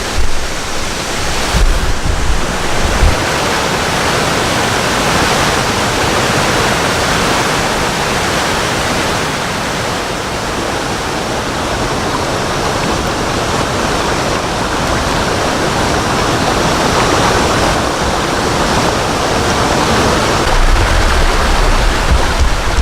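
Waterfall pouring: a loud, steady rush of falling water. A low rumble rises under it in the first few seconds and again near the end.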